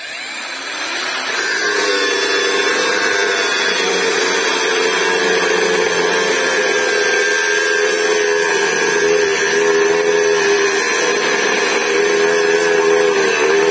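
Hengdian cordless angle grinder spinning up, then its cutoff disc cutting into thick steel angle iron: a steady motor whine with a high grating hiss from the disc on the metal.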